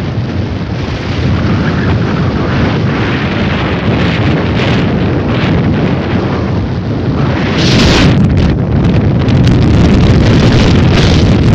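Storm wind gusting hard against the microphone: a dense low rumble that swells and eases, growing louder from about eight seconds in.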